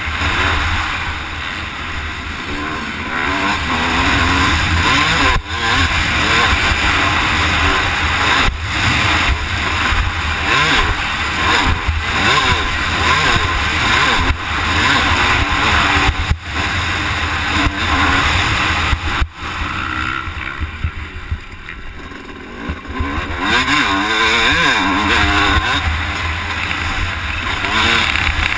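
Motocross bike engine revving up and down through the gears, with brief cuts in the engine note several times and a quieter stretch about two-thirds of the way through.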